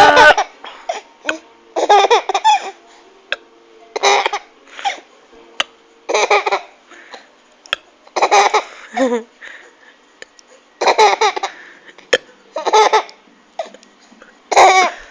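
Laughing in short bursts about every two seconds, with small clicks and handling noise in between.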